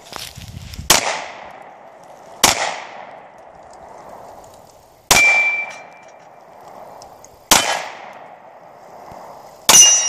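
Five handgun shots, spaced roughly two seconds apart, each followed by a short echo. Steel plate targets ring after two of the shots, the middle one and the last.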